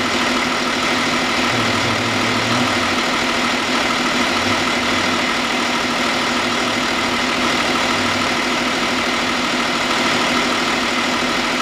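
Audi Q7's 3.0-litre V6 turbodiesel running steadily at idle while the freshly refilled Aisin 09D automatic gearbox warms up.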